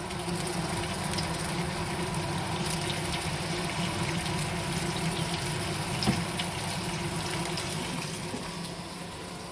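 Prawns sizzling in hot oil in a frying pan: a steady hiss dotted with small crackles and pops, over a low steady hum.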